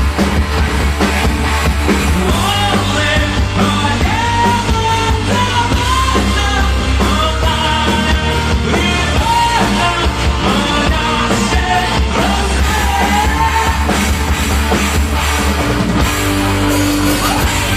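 Live heavy metal band playing loudly: distorted electric guitars, bass and drums, with a melody line that wavers and bends in pitch over the top.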